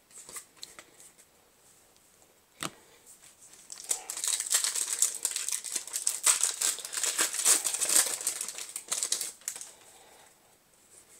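Foil wrapper of a Yu-Gi-Oh! booster pack crinkling as it is torn open by hand: a few light clicks, then a dense crackle from about four seconds in that lasts some five seconds before dying away.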